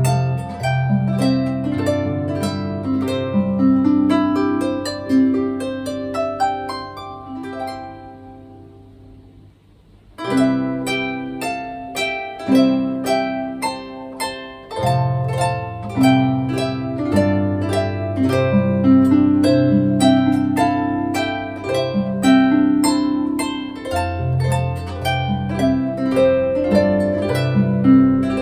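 Solo harp background music, a flowing run of plucked notes. It fades away between about eight and ten seconds in, then starts again with a new phrase.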